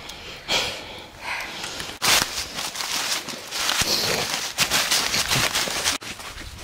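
Footsteps crunching and rustling through dry fallen leaves, a series of uneven crackling steps.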